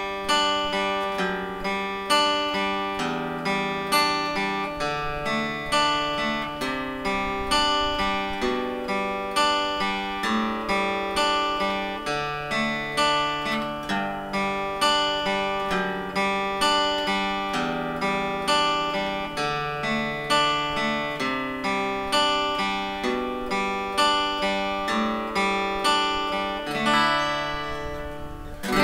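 Steel-string acoustic guitar fingerpicked, with a steady stream of plucked, ringing notes over a slowly moving bass line. It is freshly strung with Ziko DUS silver-plated strings in gauge 12.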